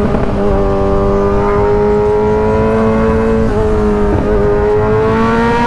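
Kawasaki Z1000's inline-four engine with an aftermarket Arrow exhaust, pulling steadily under way. Its note climbs slowly, dipping briefly twice near the middle.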